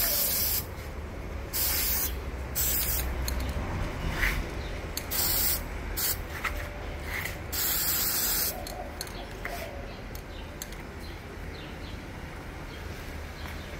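Aerosol spray-paint can hissing in short bursts, about six squirts over the first eight seconds, then it stops.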